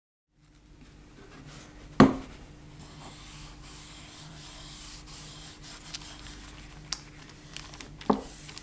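A cloth rubbing boiled linseed oil into a wooden plane handle, over a low steady hum. A loud sharp knock comes about two seconds in, a smaller one near seven seconds, and another just after eight seconds.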